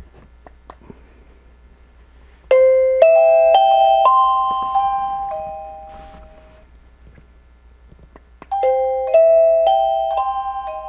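Rebluum wireless video doorbell's chime playing a short tune of about six clear notes, each ringing on and fading; the same tune plays a second time about six seconds later. A few faint clicks come before the first chime.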